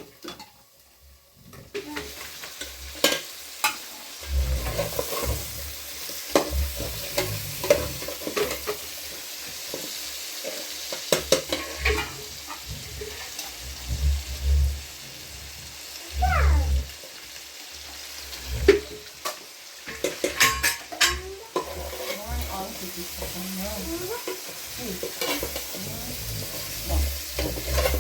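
Food sizzling as it fries in a pan, starting about two seconds in, with scattered clicks and knocks of a utensil stirring against the pan.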